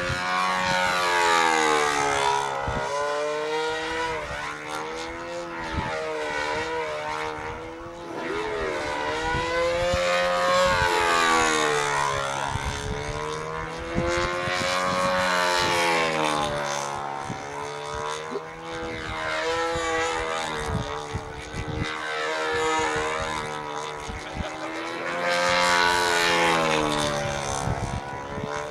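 Control-line stunt model aeroplane in aerobatic flight: its small engine and propeller run steadily, the pitch swinging up and down every few seconds as the plane circles, climbs and dives.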